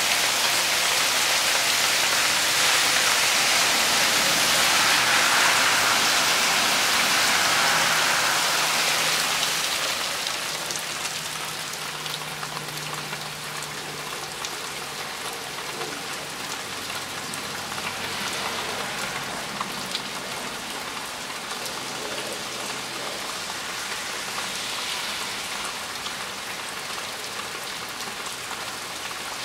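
Heavy rain pouring steadily, a dense hiss of rain on ground and plants. About ten seconds in it becomes quieter and duller, heard from behind a window glass.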